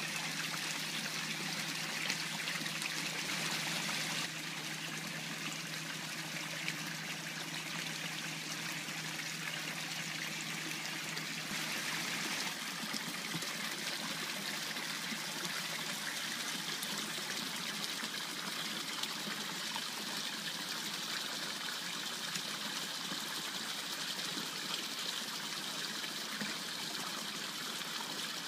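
Water pouring from two pipes into a koi pond, a steady splashing rush.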